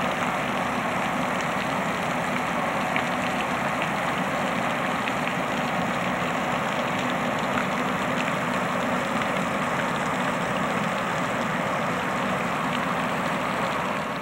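Pond fountain splashing steadily, an even rush of falling water.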